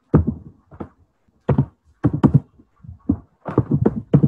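Computer keyboard typing: about a dozen irregular, loud keystrokes, several in quick runs.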